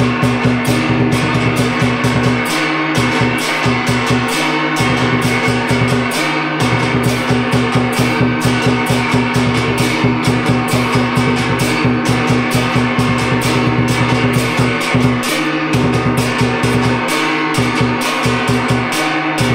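Vietnamese drum-and-gong ensemble (trống chiêng) playing: many hand-held gongs and a large barrel drum struck in a fast, even beat, the gongs' low tones ringing on under the strokes, with brief breaks in the ringing every few seconds.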